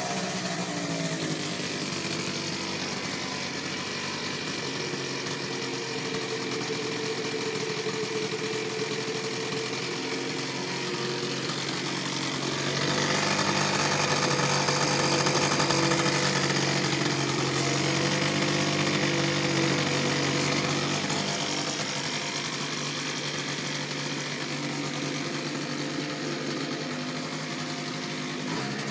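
Aprilia SR scooter's engine running at idle with a steady rattle, growing louder for several seconds about halfway through.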